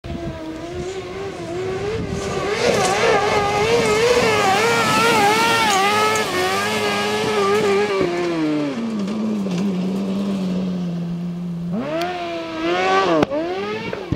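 Kartcross buggy's Suzuki GSX-R motorcycle engine running at high revs, its pitch rising and falling as the throttle is worked through the corners. A little past halfway the note drops to a lower, steady pitch, then near the end the revs climb steeply, break once with a gear change and climb again as the buggy comes past close by.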